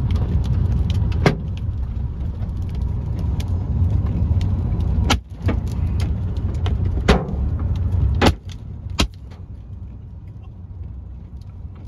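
Car driving, with a steady low road and wind rumble broken by several sharp knocks and clicks. The rumble falls away after about eight seconds.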